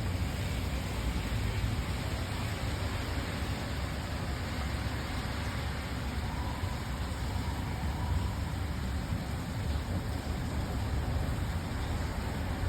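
Steady city rain ambience: an even hiss of rain over a low, continuous rumble of traffic.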